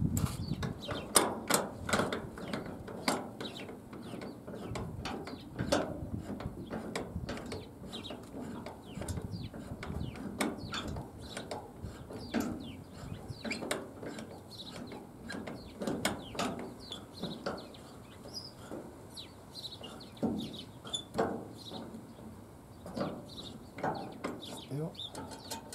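Metal clinks and taps of a tool working a camper tie-down turnbuckle as it is tightened by hand, irregular and busiest in the first few seconds, then scattered.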